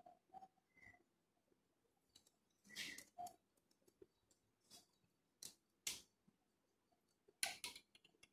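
Near silence broken by a few scattered clicks and knocks as a pigeon cage's small door is handled. The loudest comes about three seconds in, with a small cluster near the end.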